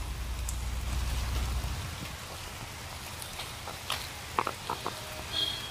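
Outdoor wet-weather ambience picked up by a Nokia 8 phone's microphone: a steady rain-like hiss. A low rumble runs through the first two seconds, and a few short sharp clicks and brief high chirps come near the end.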